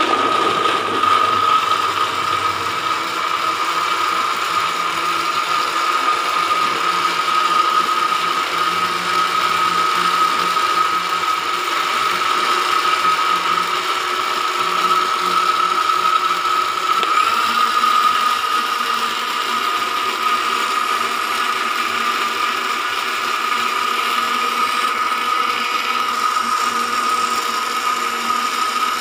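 Electric kitchen blender running steadily at speed, its motor giving a high steady whine over a dense mechanical rattle.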